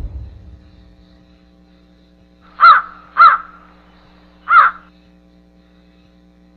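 Three harsh crow caws, two close together about two and a half seconds in and a third a little over a second later. A low rumble fades away in the first second.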